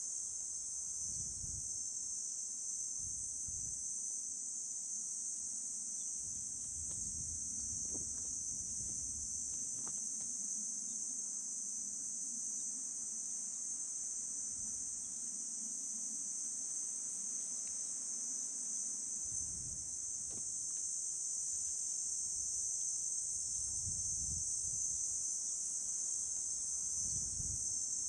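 Steady high-pitched chorus of insects, crickets or cicadas, trilling without a break, with soft low rumbles coming and going underneath.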